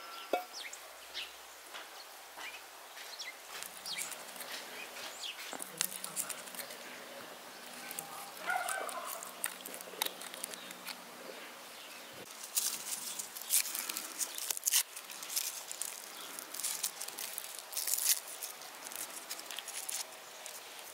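Garlic cloves being peeled by hand: papery skins crackling and short crisp clicks, more of them in the second half. A bird chirps briefly around eight seconds in.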